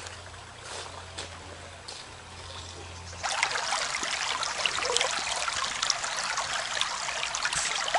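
Shallow stream trickling over stones, becoming suddenly louder and closer about three seconds in.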